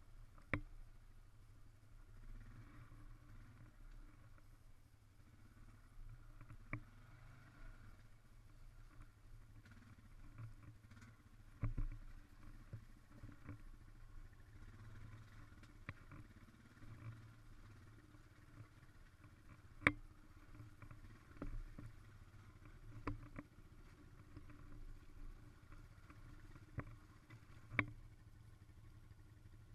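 Faint ATV engine running steadily as a low hum, with sharp knocks every few seconds.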